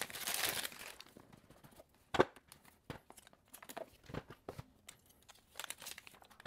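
Cardboard smartphone box and its packaging being handled: the lid slides off with a rustling scrape, then a sharp tap about two seconds in and scattered light ticks and rustles as the phone is lifted out and handled.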